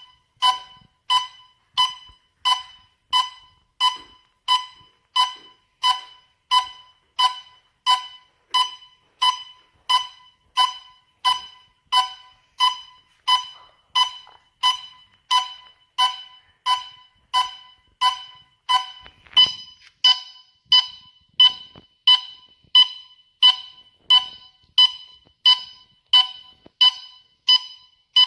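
Gas leak detector's alarm beeping steadily, about three short high beeps every two seconds, a little louder from about two-thirds of the way in.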